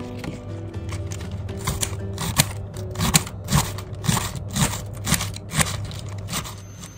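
Kitchen knife cutting bok choy on a cutting board, sharp chops about two a second, over background music with held notes that ends near the end.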